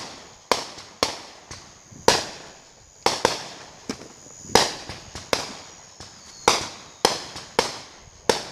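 Fireworks going off in quick, irregular succession: over a dozen sharp bangs, each trailing off in an echo.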